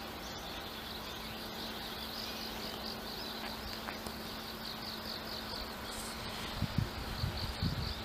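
Insects chirring in a steady pulsing rhythm, several pulses a second, over a faint steady low hum. A few low thumps come near the end.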